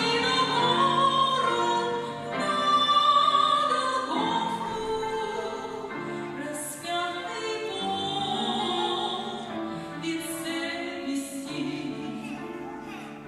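Singing in a classical, operatic style, with long held notes that change pitch every second or two.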